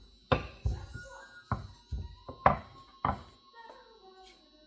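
Kitchen handling noise: six or so sharp knocks and thumps, roughly half a second to a second apart, as things are set down and moved on a counter.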